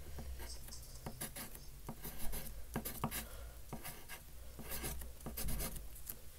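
Writing on paper: short scratchy strokes and small taps of a drawing tool as a name is signed.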